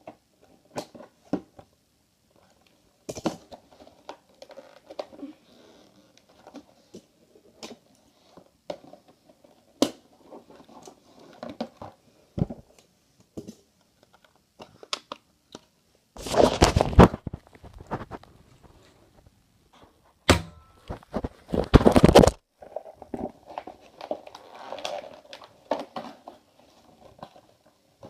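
Packaging being handled and opened by hand: scattered clicks and knocks with crinkling, and two louder rough rustling or tearing passages, one lasting about a second just past the middle and a longer one a few seconds later.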